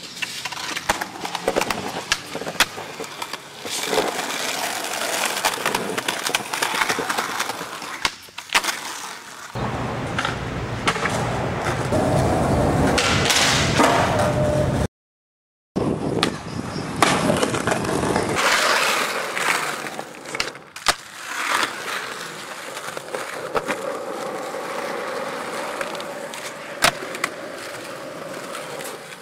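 Skateboard wheels rolling on concrete, with sharp clacks and smacks of the board popping and landing. The sound drops out for under a second a little past halfway, at a cut between clips.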